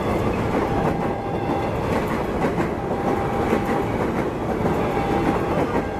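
A KRL Commuter Line electric train, an ex-JR 205 series multiple unit, passing close by: a steady, loud rumble of its wheels running on the rails.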